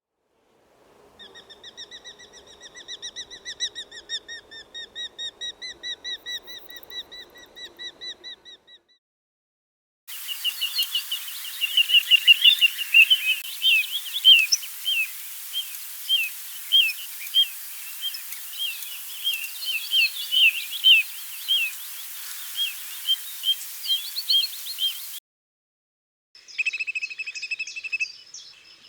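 Wild birds calling in two separate field recordings: first a fast, even run of repeated notes lasting about eight seconds, then after a short gap a bird giving many short chirping notes over a steady background hiss for about fifteen seconds.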